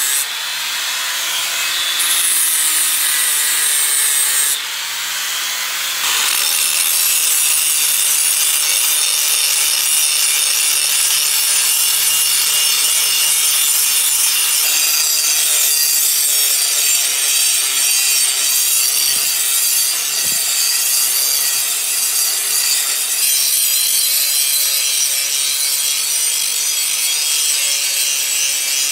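Handheld angle grinder with an abrasive disc running and grinding rust off a steel sword blade, a steady rasping grind. It dips in loudness twice in the first six seconds, then runs evenly.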